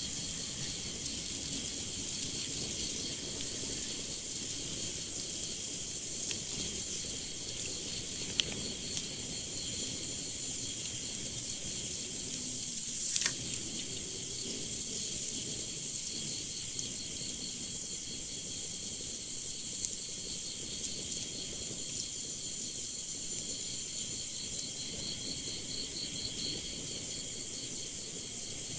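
Night insect chorus in forest: a steady high hiss with faint, evenly pulsing trills. Two brief clicks stand out, about eight and thirteen seconds in.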